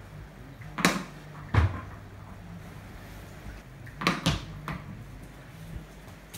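Cricket bat and ball knocking in a room: a sharp knock about a second in and a heavier thud just after, then two more knocks in quick succession a little after four seconds.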